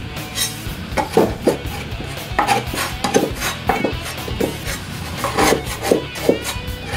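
Hands rubbing and scraping sticky pizza dough off the fingers over a wooden kneading trough: a run of irregular rasping strokes, with music underneath.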